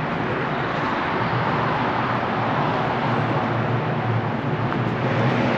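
Steady traffic noise from the A4 motorway: a continuous even hiss of tyres with a low hum underneath.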